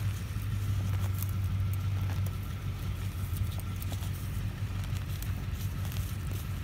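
Steady low machine hum, like an engine or motor running nearby, with faint crackling and ticking as dry roots and potting soil are pulled apart by a gloved hand.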